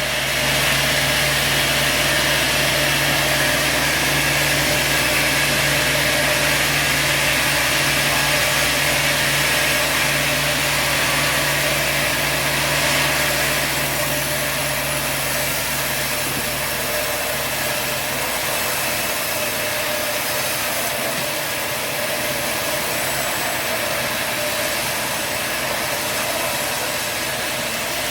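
Sawmill running with a steady engine hum. A brighter hiss sits over it for about the first half, then eases off.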